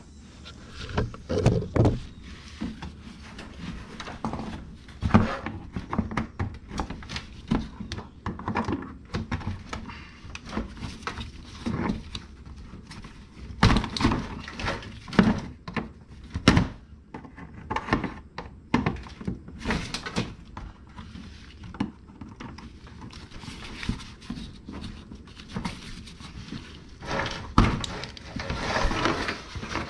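Plastic push-tab fasteners being worked out of a car's plastic wheel-well liner with a pry tool: irregular clicks, knocks and scrapes of plastic, with a denser rustling of the liner near the end.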